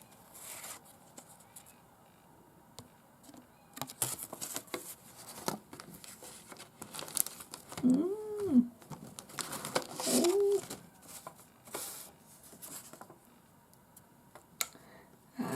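Paper and packaging crinkling and rustling as small gift items and tags are handled, with two short meows from a cat about eight and ten seconds in.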